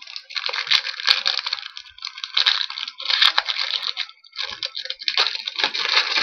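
Trading-card pack wrapper being torn open and crinkled, in several crackling bursts with short pauses between them.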